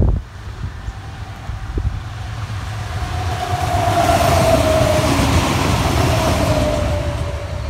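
Adelaide Metro diesel railcar 3107 passing close by: its engine and wheel noise build as it approaches, is loudest about four to six seconds in as it goes past, then eases off. A steady tone through the pass falls slightly in pitch as it goes by.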